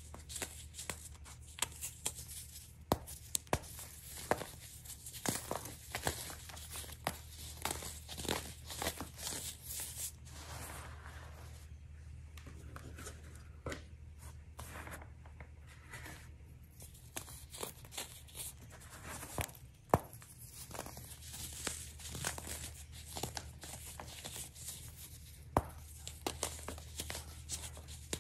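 Hands crushing and crumbling chunks of compressed baking soda: a dense run of dry crunches and crackles with occasional sharper snaps, easing off to a quieter spell in the middle before picking up again.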